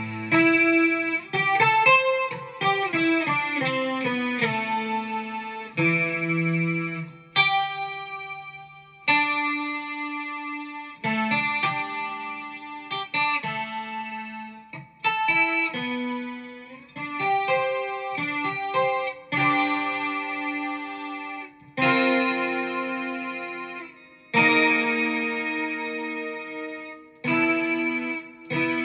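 Guitar played through a BOSS SY-200 synthesizer pedal, giving a synth tone with many overtones. It plays a slow run of sustained chords and single notes, each held for a second or two, with brief breaks between them.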